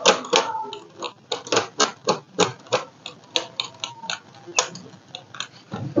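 Small screwdriver turning out the Wi-Fi card's retaining screw on a laptop motherboard, giving a run of light, irregular clicks, about three a second.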